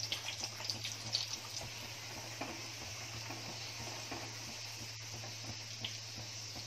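A thick sheet of pastry dough deep-frying in hot ghee in an iron kadhai: a steady sizzle. A few soft clicks in the first second or two come from a slotted steel spoon working the dough in the oil.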